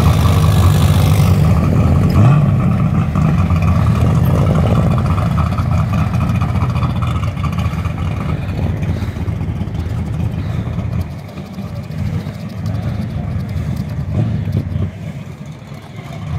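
Fox-body Ford Mustang's engine and exhaust running loud and low as the car pulls away, swelling briefly about two seconds in. The sound drops off sharply about eleven seconds in, leaving a quieter vehicle background.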